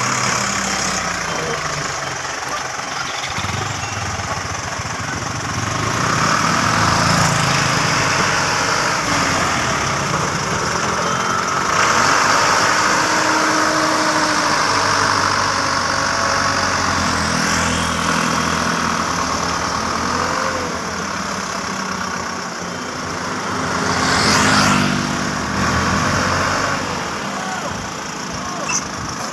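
Dump truck engine running, its revs rising and falling, with the sound swelling louder a few times as it works under a heavy load of soil.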